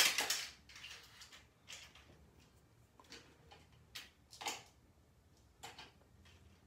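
A sudden louder sound at the very start, then a few scattered faint clicks and light taps of small objects being handled.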